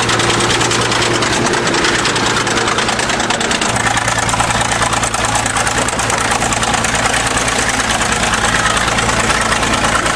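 1953 International TD-20 crawler bulldozer's diesel engine running steadily at idle, its note shifting slightly a few seconds in.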